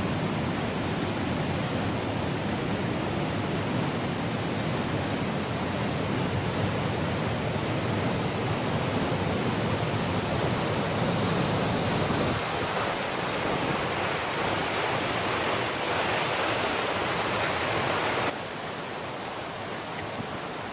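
Steady hiss of rushing water. Its deeper part drops out suddenly about twelve seconds in, and it turns abruptly quieter about eighteen seconds in.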